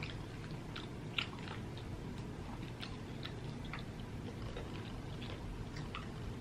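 A person chewing food with the mouth close to the microphone, with irregular small wet clicks and crunches. The food is from a KFC meal eaten by hand.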